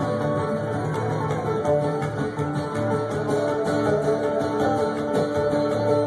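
Live bluegrass trio playing an instrumental break: acoustic guitar, banjo and upright bass picking a fast, steady tune without vocals.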